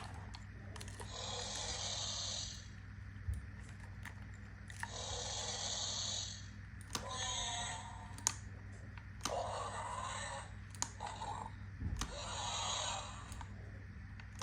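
Battery-powered Banshee creature puppet toy playing its electronic creature cries through a small speaker: about five short, noisy cries, each a second or two long and a few seconds apart, with sharp clicks in between and a steady low hum underneath.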